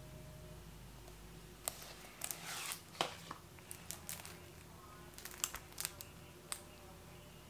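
Shrink-wrapped Blu-ray case being handled: the plastic wrap crinkles and the case gives several sharp clicks and taps, the loudest about three seconds in.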